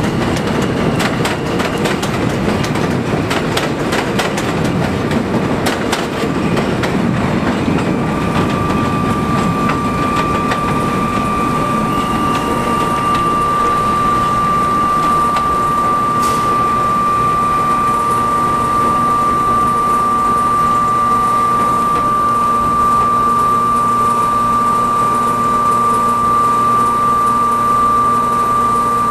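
NYC Subway R160 train passing on elevated track, its wheels clicking and clattering over the rail joints for the first several seconds. A steady high whine then takes over as the train moves away, with fainter tones stepping up in pitch for a few seconds.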